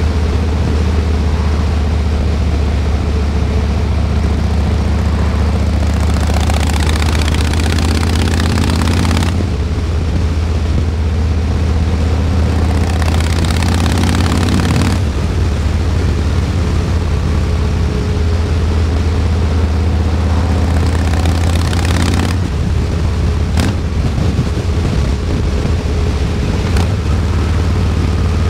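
Harley-Davidson Heritage Classic 114's Milwaukee-Eight 114 V-twin running under way, a steady low engine note. Three times for a few seconds a louder rushing noise rises over it and then cuts off suddenly, and two sharp clicks come near the end.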